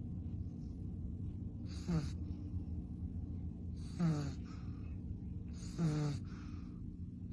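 Pug snoring in its sleep: a short, rasping snore about every two seconds, three in all, each dropping in pitch, over a steady low hum.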